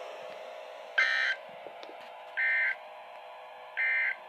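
Three short, shrill electronic data bursts from NOAA weather radios, about a second and a half apart: the EAS end-of-message tones that close the Required Weekly Test. A steady faint hum from the radios runs underneath.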